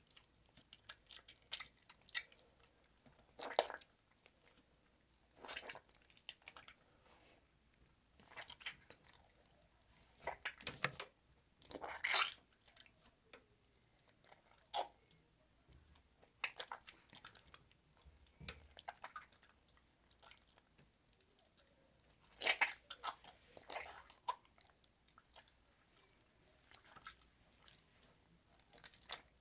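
Hands squeezing and digging into a melon's flesh, making irregular wet squelches and crunches, a foley imitation of guts and entrails. The squelches come singly with pauses between, a few stronger ones about twelve seconds in and again past twenty seconds.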